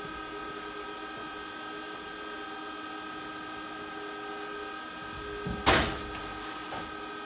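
Steady, even machine whine from a running power tool motor, with a single sharp knock about five and a half seconds in.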